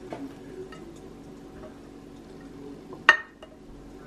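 Dishes and utensils clinking lightly, with one loud, sharp, ringing clink about three seconds in.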